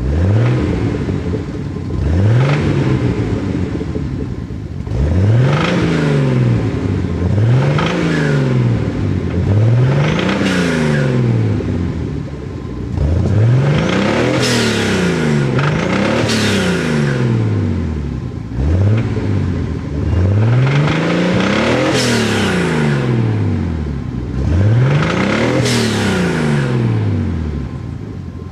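Datsun 280ZX's L28ET turbocharged inline-six revved in about a dozen blips, each rising in pitch and falling back, some in quick pairs. The engine has rod knock, metal hitting metal inside it.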